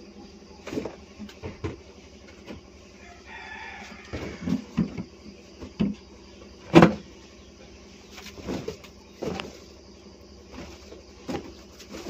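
Scattered soft knocks and bumps as a small child moves about among balloons on the floor, with one much louder sharp knock about seven seconds in.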